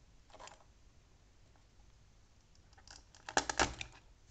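Hands handling wires on a wiring board and pushing a wire connector onto a terminal. A faint rustle comes first, then a quick cluster of clicks and rattles about three and a half seconds in.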